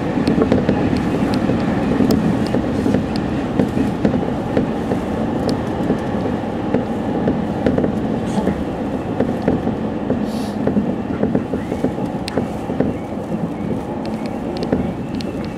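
Electric commuter train running at speed, heard from inside the front car: a steady rumble of wheels on rail with scattered clicks and knocks.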